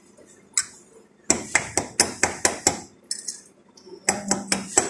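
Cutlery clinking against a plate in quick, regular strokes, about four a second, in two runs with a short pause between.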